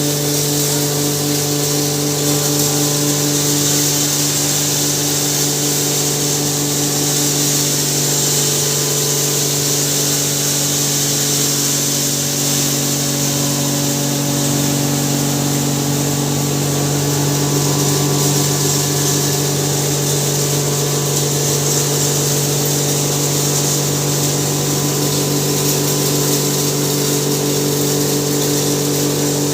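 Hammer-mill maize grinder running steadily: a constant machine hum with a broad hiss above it.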